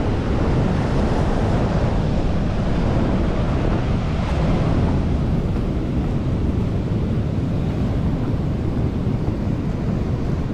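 Wind buffeting the microphone over the steady wash of surf on the rocks.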